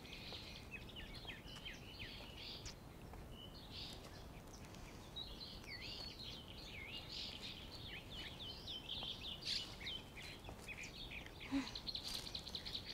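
Faint outdoor birdsong: several small birds chirping and twittering in quick, high rising and falling notes over a low background noise. A steady high buzz joins near the end.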